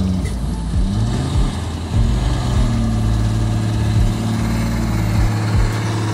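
Kenworth C509 road train's diesel engine pulling steadily, its revs dipping and climbing again about a second in, with a few low thumps.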